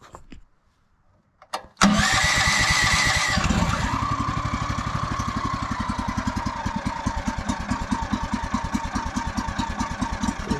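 Kohler engine on a Rima RS31G sawmill cranking, catching about two seconds in, and settling into a steady, even run. It is running with the choke still on, which the owner later calls a mistake.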